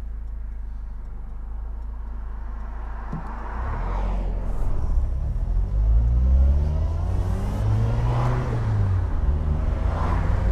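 Triumph Herald 13/60's 1300cc four-cylinder engine running steadily, then pulling away hard about three seconds in, its revs climbing and dropping back repeatedly as it goes up through the gears.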